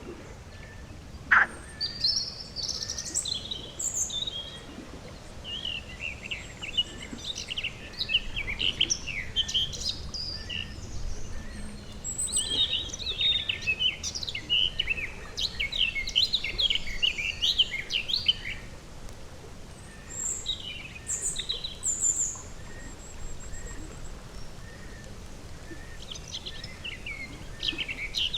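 Outdoor pond ambience of several birds singing and chirping, with quick gliding notes in busy bursts and a few high whistles. There is a single sharp, loud call or splash about a second in.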